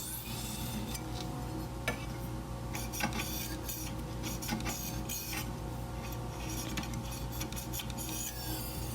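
Steel chef's knife blade drawn in repeated scraping strokes across a sharpening stone, with a few light clicks of the blade against the stone. A steady low hum runs underneath.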